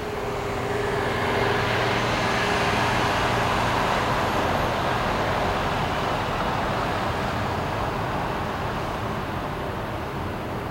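Jet airliner's engines passing close by: a broad roar that swells over the first couple of seconds, peaks a few seconds in, then slowly fades away.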